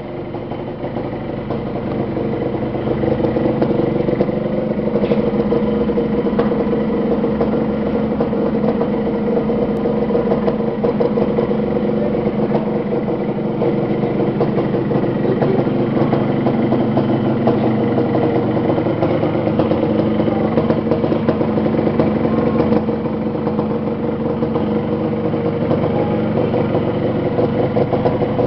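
Restored Yamaha RD 135 two-stroke motorcycle engine running for the first time after restoration, getting louder over the first few seconds and then running steadily.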